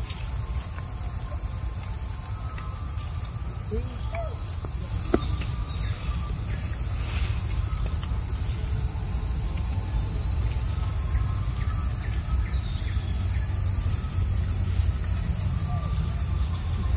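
A steady, high-pitched chorus of forest insects drones without a break, over a low rumble.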